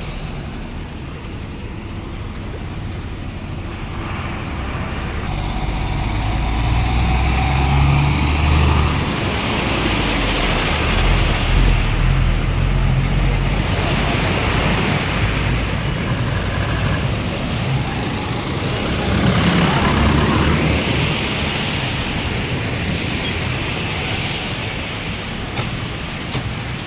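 Lorries driving slowly through floodwater over a road: a close, low diesel engine rumble, with water rushing and splashing around the wheels. It grows louder through the middle.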